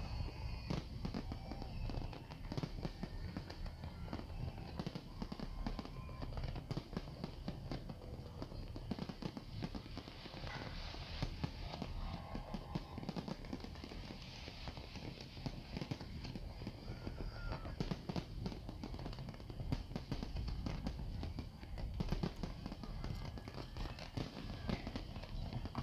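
Fireworks display: a continuous, rapid stream of bangs and crackling from many shells bursting at once, with voices from the watching crowd underneath.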